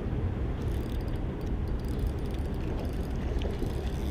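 Spinning reel being wound in, faint light ticking starting about half a second in, over a steady low rumble.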